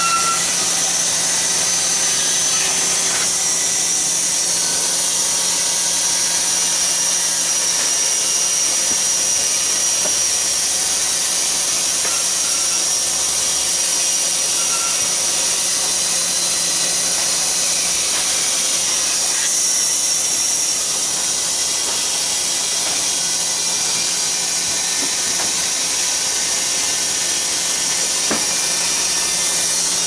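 Sawmill machinery running steadily: a constant mechanical din with a high hiss over a low hum and no break.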